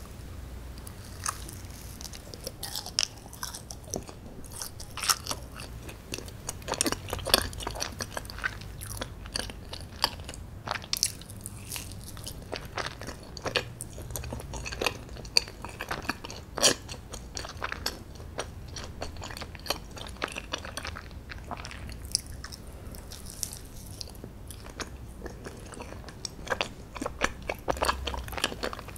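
A person biting into a fudgy chocolate brownie and chewing it, with many small irregular mouth clicks.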